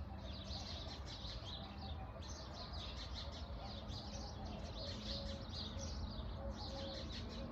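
Pre-dawn chorus of many small birds, with quick, overlapping chirps and tweets coming continuously, over a faint steady low hum.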